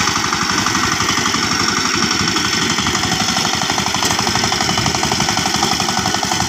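Power tiller's single-cylinder diesel engine running steadily as the machine drives along, with a rapid, even beat.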